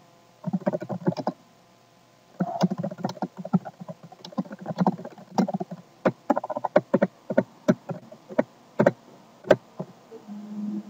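Computer keyboard typing: rapid, irregular key clicks, with a pause of about a second near the start, stopping shortly before the end.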